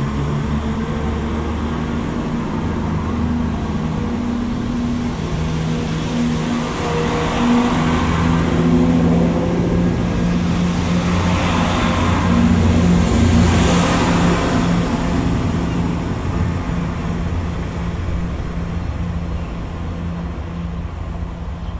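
Class 170 Turbostar diesel multiple unit on the move, its underfloor diesel engines droning steadily. The sound swells as the train passes close, loudest about two-thirds of the way through with a short high whine, then fades as it moves away.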